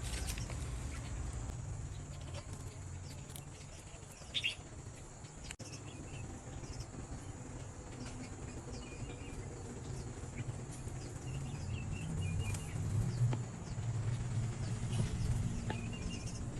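Outdoor ambience: a low steady rumble, louder in the second half, with scattered short bird chirps.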